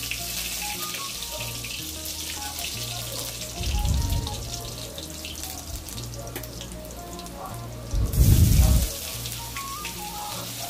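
Cumin seeds and chopped green chillies sizzling in hot oil in a wok, a steady hiss, under soft background music with a low bass line. Two dull low bumps come about four and about eight seconds in.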